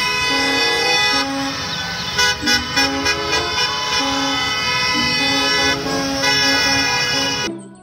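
School bus horns honking as the buses pull out, several horns overlapping in one long continuous blare that cuts off suddenly near the end.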